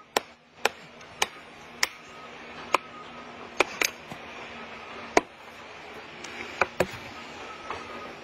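Axe poll hammering a plastic felling wedge into the back cut of a large tree: about ten sharp knocks at uneven intervals, two of them in quick succession near the middle and again near the end.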